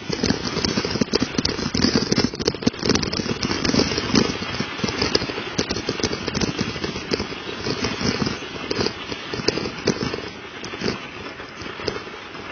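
Mountain bike's Michelin tyres crunching and crackling over icy, melting snow, with a dense run of irregular clicks and rattles as it rolls over the bumpy trail.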